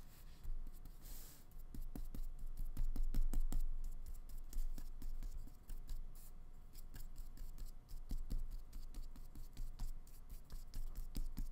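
Flat paintbrush mixing acrylic paint on a paper palette, then brushing it onto paper: a run of small scratchy strokes and taps.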